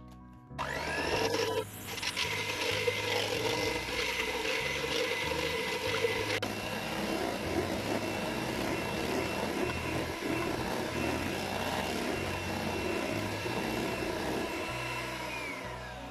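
Electric hand mixer whipping heavy cream in a stainless steel bowl. The motor starts about half a second in and runs with a steady whine that steps higher about six seconds in, then winds down with a falling whine near the end.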